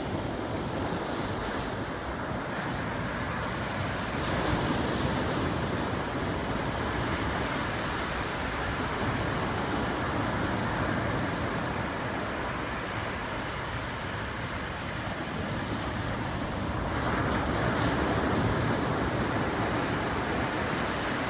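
Small sea waves breaking and washing in among shoreline rocks, a steady rush that swells louder now and then, most strongly near the end. Wind buffets the microphone.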